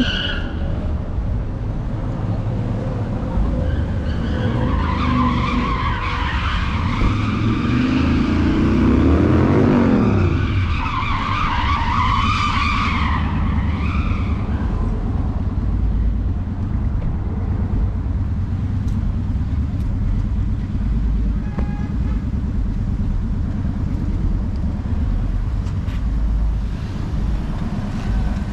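A car doing a burnout: tires screeching and the engine revving up and back down, from about four to fourteen seconds in, over the steady low rumble of street traffic.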